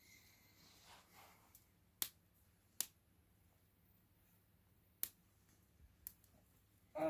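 Resinous Nordmann fir branches, still slightly damp, catching on a bed of embers: sharp crackling pops a second or so apart, with a faint hiss early on and a louder, longer burst right at the end.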